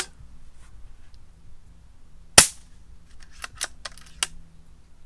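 Daystate Huntsman Revere Safari Edition PCP air rifle, fitted with a screw-on silencer, fires one shot a little over two seconds in: a short, sharp crack. About a second later come three quick clicks as the side lever is cycled to chamber the next pellet.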